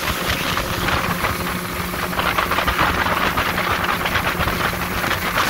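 Motorboat running at speed: the engine's steady drone under the rush and splash of water churning in the wake.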